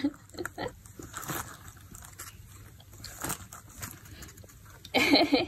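Cat rummaging with its head inside a cardboard box, making soft, scattered rustles and crinkles among the contents. Near the end comes a brief, louder vocal sound lasting about half a second.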